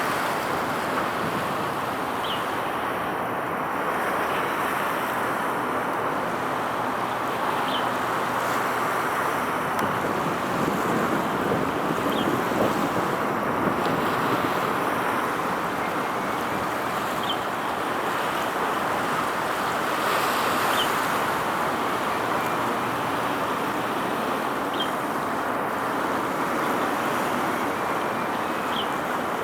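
A steady, even outdoor rushing noise that does not change, with a faint short tick every few seconds.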